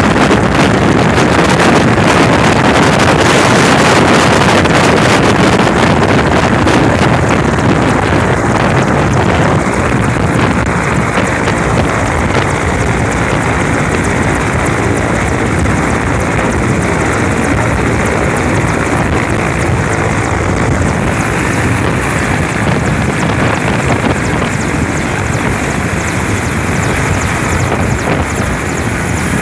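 Mil Mi-8-series transport helicopter running on the ground, a loud steady rush of turbines and rotor. Rough wind buffeting on the microphone over the first several seconds, and a thin high turbine whine comes in about two-thirds of the way through.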